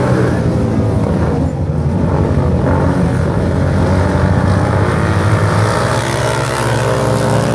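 Several racing motorcycles running hard together, a loud, continuous engine drone whose pitch shifts a little as they ride.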